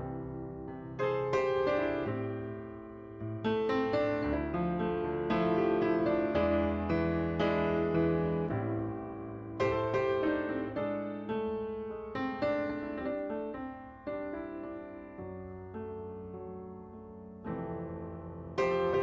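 Background piano music: gentle chords and melody notes, each struck and left to fade.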